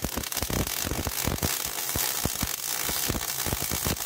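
Millermatic 35 MIG welder laying a short bead on steel plate: the arc crackles and pops irregularly over a steady hiss, with the welder's low hum underneath.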